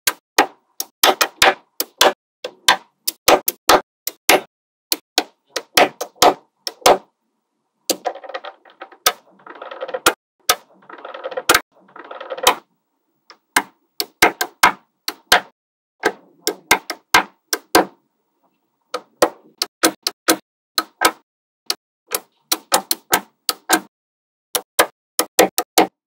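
Small magnetic balls clicking sharply as they snap onto one another, irregular single clicks with a few stretches of quick rattling clicks.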